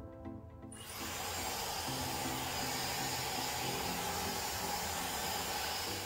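Regular Dyson Supersonic hair dryer fitted with the professional concentrator nozzle, switching on about a second in and then blowing steadily as an even rush of air. Background music sits underneath.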